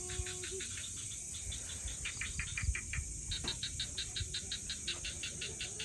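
Night insects chirping in quick, evenly spaced pulses, about six a second, over a steady high hiss. A brief held tone fades out at the start.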